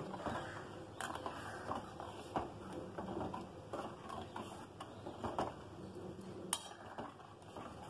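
Steel ladle stirring milky payasam in a steel pot, scraping and lightly clinking against the pot's sides and bottom at irregular moments, with one sharper clink toward the end.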